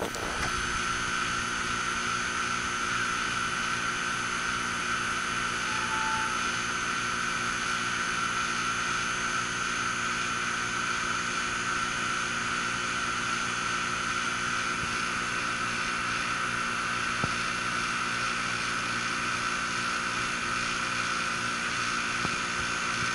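Trane gas pack packaged unit running steadily in cooling mode: the condenser fan and compressor give an even, unchanging machine hum and whoosh.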